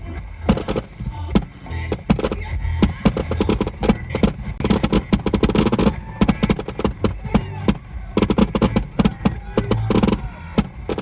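Aerial fireworks going off in a rapid barrage: dense strings of sharp bangs and crackles, easing briefly about six seconds in before another dense cluster.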